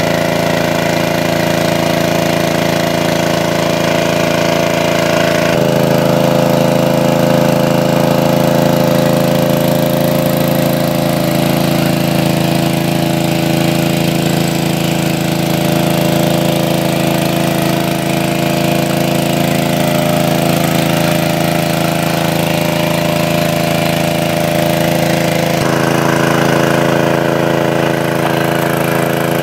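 Engine of a large-capacity water pump running steadily at constant speed. Its tone changes abruptly twice, about five seconds in and again near the end.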